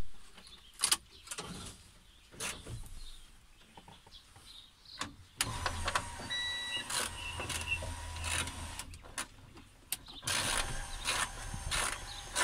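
Ignition key clicking in the lock, then the Iveco Eurocargo's electric window motor and newly fitted regulator running steadily for several seconds to move the door glass. It stops briefly and runs again near the end. A short high beep sounds about six seconds in.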